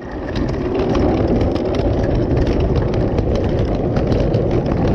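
Hard little wheels of rolling luggage and a wheeled cooler rumbling over concrete paving slabs, with a steady patter of small clicks and rattles as they cross the joints.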